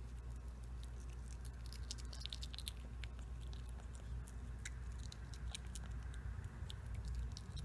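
Kinkajou chewing a peeled banana: irregular small mouth clicks and smacks, over a steady low hum.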